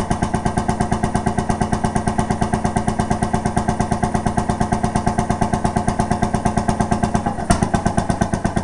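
Ellis 1–3 hp vertical two-stroke stationary engine running steadily, firing with a rapid, even beat.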